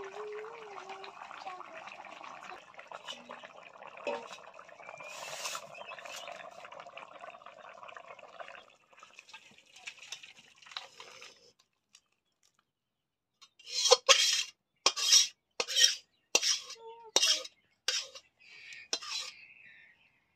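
A long metal spatula scraping and clanking against an iron kadai and a steel bowl as fish curry is scooped out. In the second half this comes as a run of about a dozen sharp metal scrapes, about two a second. Before that there is a steady low hiss from the pot.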